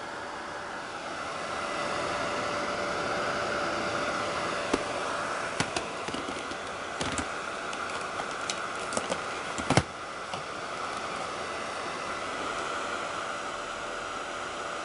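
Sharp EC-WX310 cyclone vacuum cleaner running with a steady whirring hiss and a faint hum. A scatter of sharp clicks and knocks comes between about five and ten seconds in, the loudest near the ten-second mark.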